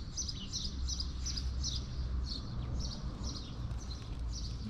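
Small birds chirping, a run of short high chirps a few times a second, over a low steady rumble.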